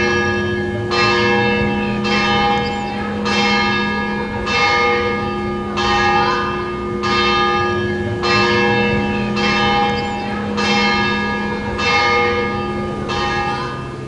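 Church bells ringing in a steady peal, struck about once every second or so, with a long hum carrying on between the strokes.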